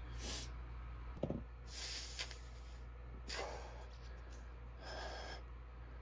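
A man breathing hard in four forceful breaths from the strain of a long hand-gripper hold, with a light knock about a second in and a steady low hum underneath.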